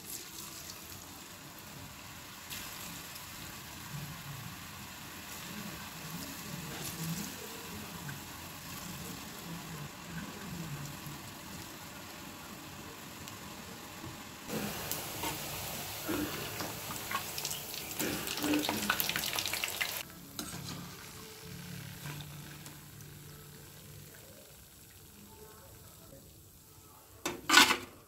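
Ribbon pakoda dough deep-frying in hot oil, a steady sizzle with crackles that grows louder for several seconds past the middle, then dies down. A sharp knock near the end.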